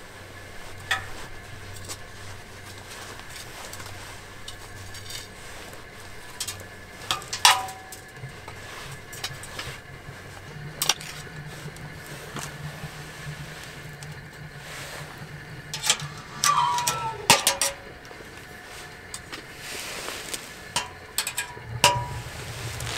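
Scattered clinks and knocks of dishes and utensils, a few ringing briefly, over a low steady hum.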